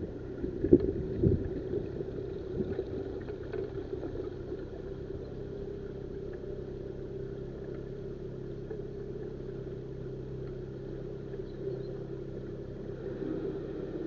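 Narrowboat engine running steadily with a low hum, with a few knocks in the first couple of seconds.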